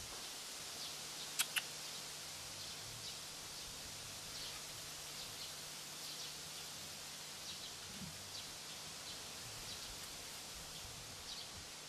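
Outdoor ambience: a steady background hiss with faint, short high chirps scattered throughout, and two sharp clicks close together about a second and a half in.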